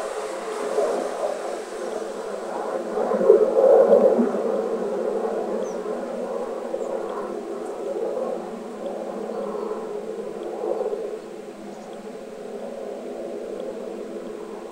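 A wavering droning hum that swells and fades, loudest about three to four seconds in. It is the unexplained outdoor 'strange sound' that went on for about half an hour, which the recordist wonders could just be ordinary planes.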